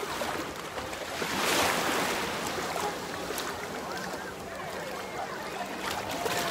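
Shallow surf washing onto a sandy beach and water sloshing around wading legs, with a swell of rushing water about a second and a half in. A few small clicks sit on top.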